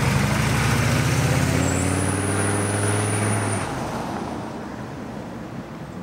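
Old diesel Suburban with a DIY free-flowing muffler on its 4-inch straight-through exhaust driving past and accelerating. The engine note rises in pitch with a thin high whistle over it, then falls off about three and a half seconds in and fades away as the truck leaves.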